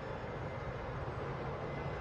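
Norfolk Southern diesel locomotive standing with its engine running, a steady low hum under a broad rushing noise.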